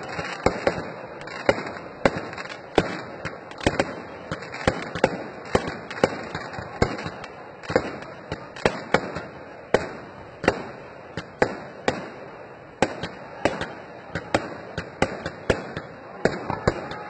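Aerial fireworks going off in a rapid, irregular series of sharp bangs, about two a second, with a continuous noisy crackle between them.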